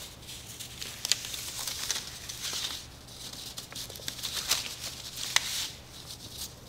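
Paper rustling and crinkling in uneven bursts as a strip of construction paper is woven over and under the slits of a paper sheet, with a few sharp ticks.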